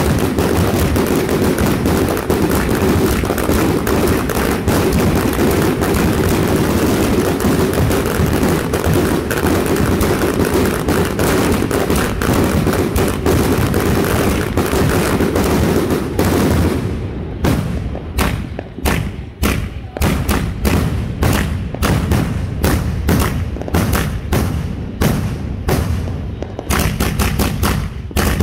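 Multi-shot consumer fireworks cakes firing together: a dense, continuous barrage of shots and bursts for about sixteen seconds, then thinning to separate sharp bangs, two or three a second.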